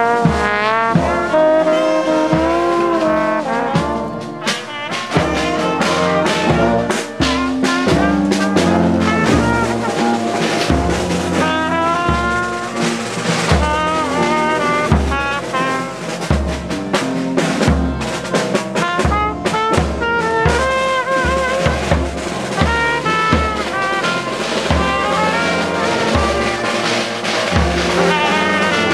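Marching brass band playing a march: trombones and trumpets carry the tune over a bass drum keeping a steady beat.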